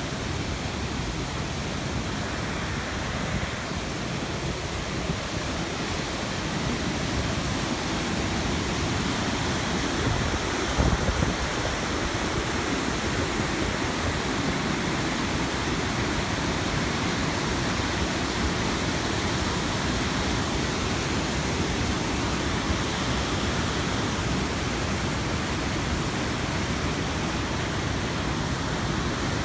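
Waterfall rushing steadily, an even wash of falling water, with a brief low bump about eleven seconds in.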